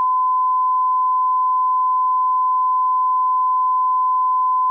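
A steady electronic sine tone, like a test-tone beep, that starts abruptly and holds one unchanging pitch.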